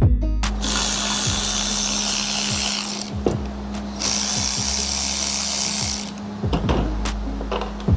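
Power drill running in two runs of a couple of seconds each, driving screws while the radiator assembly is fastened together. Background music with a steady bass beat plays underneath.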